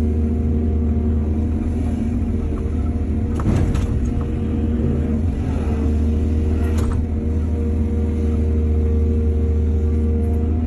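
Excavator's diesel engine running steadily, with two brief clatters, about three and a half and seven seconds in, from the digging and loading work.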